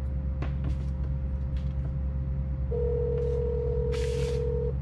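Telephone ringback tone heard over a phone's speaker: after a pause, one steady ring of about two seconds begins past the middle. The outgoing call is still ringing and has not been answered. A steady low hum runs underneath, with a brief hiss near the end.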